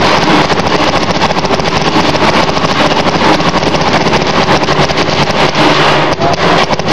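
Paintball marker firing in a rapid, unbroken string of shots, many a second, held for several seconds.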